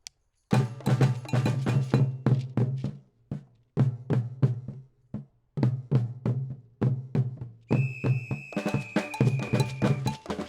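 Brazilian-style percussion group playing drums, with a deep bass drum and woodblock-like clicks, in rhythmic phrases broken by short pauses. A high, steady note is held for about two seconds near the end.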